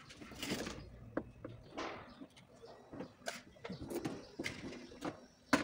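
A car's plastic rear bumper cover being gripped and pulled by hand: a run of clicks, knocks and scraping rubs, with one sharp knock just before the end, the loudest sound.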